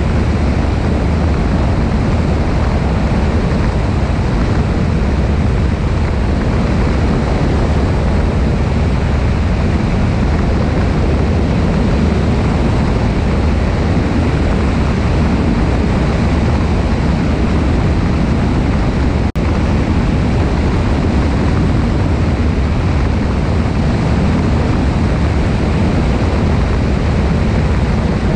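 Cessna 172 in cruise flight: the steady drone of its piston engine and propeller under a loud, even rush of airflow over the wing-mounted camera. About two-thirds of the way through there is a momentary dropout.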